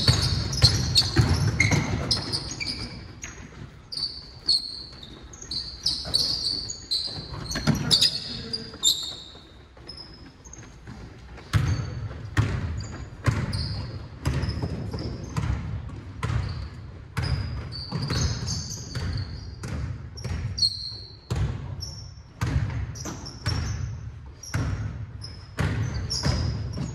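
Basketball dribbled and bouncing on a hardwood gym floor, echoing in a large hall. The bounces are irregular at first and settle into a steady beat of about one and a half a second. Sneakers squeak sharply on the floor in between.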